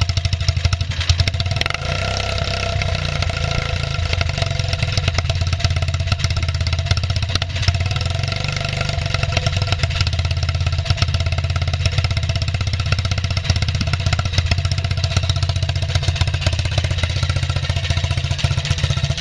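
Yamaha Badger ATV's small single-cylinder four-stroke engine idling steadily, running after a top-end rebuild with freshly lapped valves.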